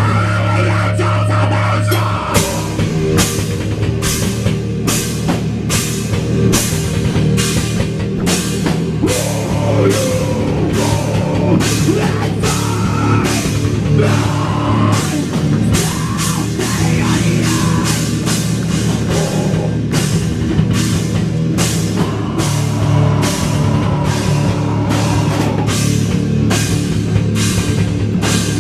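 Live metal band playing loud: distorted electric guitars and bass held under a drum kit that comes in about two seconds in and keeps a steady beat of roughly two hits a second.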